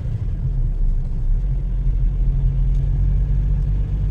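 A road vehicle's engine running steadily, heard from on board, with a low, even hum.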